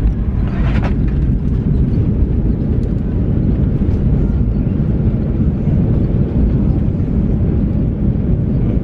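Jet airliner cabin noise as the plane comes in to land: a loud, steady low rumble of engines and airflow.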